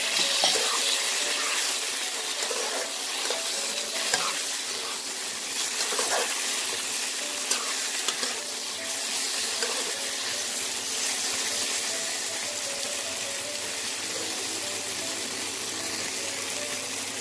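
Cubed capsicum and onion sizzling in oil and masala paste in a kadai, stirred with a spatula.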